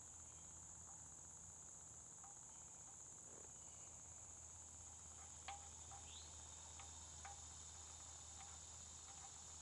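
Near silence with a steady high insect trill in the background, and a few faint ticks in the second half.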